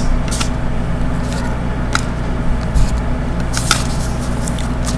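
A few faint rustles and clicks of hockey trading cards being handled, over a steady low electrical hum.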